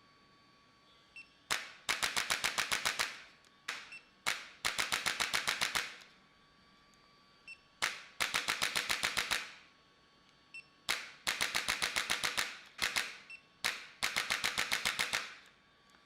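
Rapid mechanical clicking in five bursts of about a second and a half, roughly ten clicks a second, with a single click or two before each burst.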